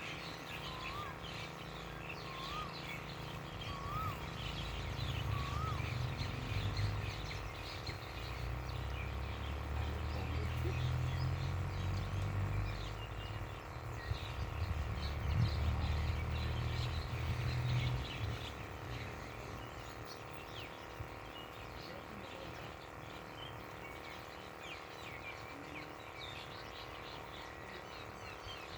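Small birds chirping with a busy outdoor background of faint high calls. A low rumble sets in about five seconds in and stops abruptly at about eighteen seconds.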